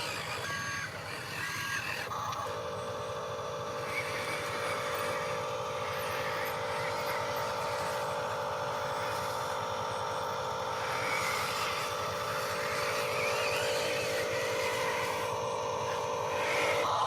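A Huina RC construction machine: a few reversing beeps in the first two seconds, then a steady, even whine from its electric drive and gears that stops just before the end.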